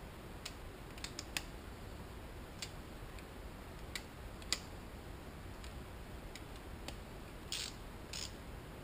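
Scattered light metallic clicks and taps from a hand tool working in a motorcycle cylinder head, with two short scraping sounds near the end.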